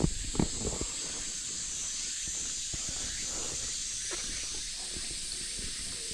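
Steady high cicada chorus with a person's footsteps walking on the temple paths. The steps are loudest right at the start, then continue more softly.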